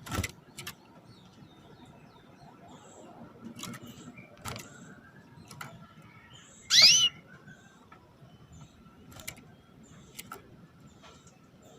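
Female canary giving a single short upward-sweeping chirp, the 'cuit' call used to stir male canaries into song, about two-thirds of the way through. Scattered sharp clicks come before and after it, the loudest right at the start.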